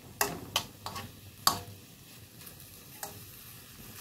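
Metal spoon clinking and scraping against a steel wok as diced chicken is stir-fried, with several sharp clinks in the first second and a half and another about three seconds in.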